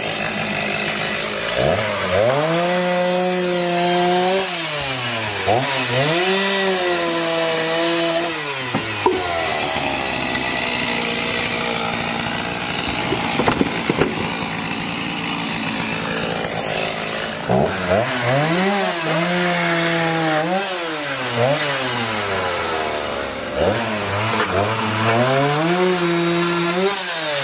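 Two-stroke chainsaw revving up and down in repeated long pulls, with a rougher, unsteady stretch in the middle, as it cuts up the timbers of a wooden play structure.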